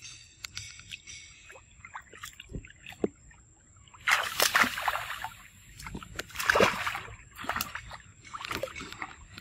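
Water sloshing and splashing as macaques swim and scramble in a pool: small drips and ripples at first, then two louder bouts of splashing about four and six and a half seconds in, with smaller splashes after.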